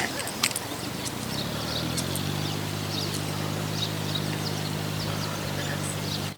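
A steady low motor hum sets in about two seconds in, with short high chirps and a few sharp clicks above it. The sound cuts off suddenly at the end.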